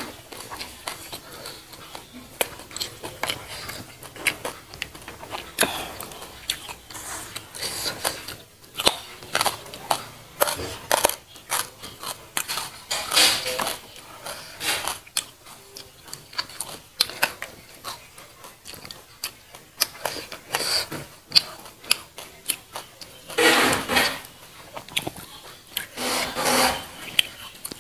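Close-miked eating sounds: chewing, lip smacks and many short, wet mouth clicks, with fingers picking at fish and food on the plate. A few longer, louder noisy stretches come near the end.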